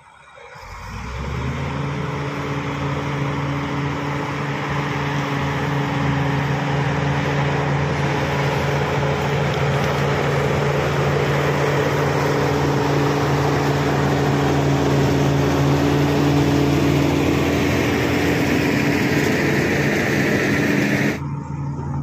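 Crawler bulldozer's diesel engine working close by as the machine pushes wet soil, a loud, steady, deep drone. It comes in about a second in and cuts off abruptly near the end.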